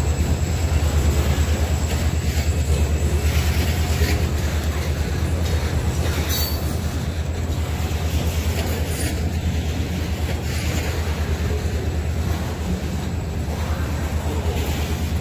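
Freight cars of a passing train rolling by close at hand: a steady low rumble of steel wheels on the rails, with scattered wheel clicks and a brief sharp high noise about six seconds in.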